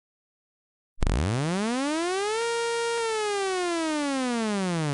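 A tornado siren sounds one wind-up and wind-down. About a second in, its tone starts low and climbs for about a second and a half, holds steady for about half a second, then slowly falls back down.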